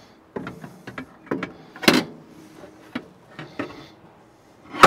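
Steel inner parts of a Country Smokers CS150PPG portable pellet grill being handled and set into the grill body: a run of irregular clanks and knocks, with a loud clank about two seconds in and a sharp one near the end.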